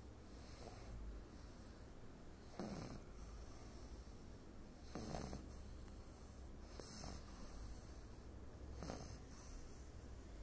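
Small dog snoring in its sleep, a short snore about every two seconds, five in all.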